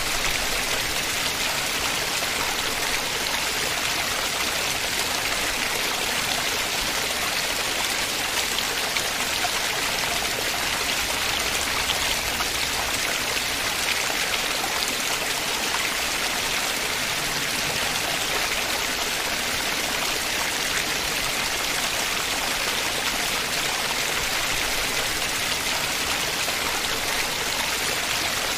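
Waterfall pouring, a steady, unbroken rushing of falling water.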